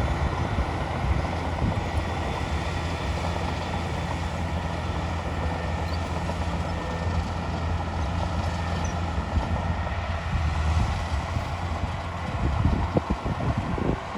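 Heavy construction machine's diesel engine running steadily under load, with a deep, even drone. A few uneven louder thumps come near the end.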